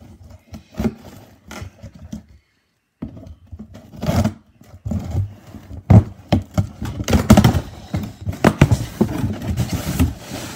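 Cardboard box being cut open with a knife and its flaps pulled open: irregular scraping, tearing and knocking, with a brief break about two and a half seconds in, then busier and louder.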